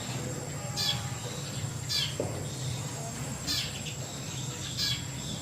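Birds chirping in short quick trills, four of them about a second and a half apart, over a steady high-pitched insect drone and a low hum.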